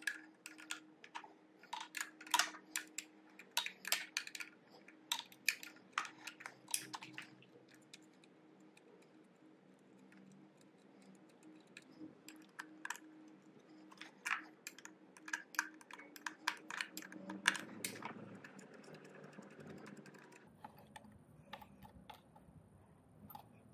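Ratcheting spanner clicking in quick irregular runs as bolts are undone on an electric dirt bike's motor controller, with a pause of a few seconds in the middle. A faint low hum runs underneath.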